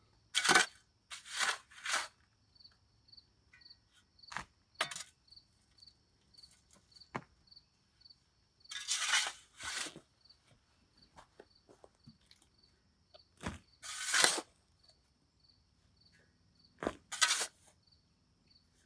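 Shovel scraping and scooping sandy soil to level the floor of a dug pit: a string of separate scrapes with pauses between them, a few louder than the rest.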